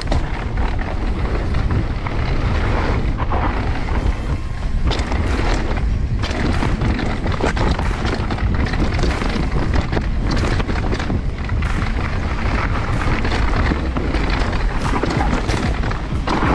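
Mountain bike descending a dirt and rock downhill track at speed. Wind buffets the microphone in a heavy rumble, over frequent clatters and rattles from the bike on rough ground.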